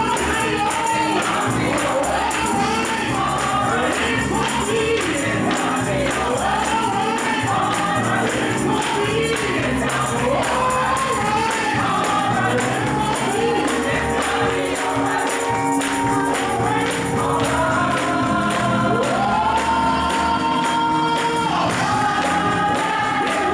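Gospel choir singing with a tambourine shaken along and hands clapping. Near the end the voices hold long notes.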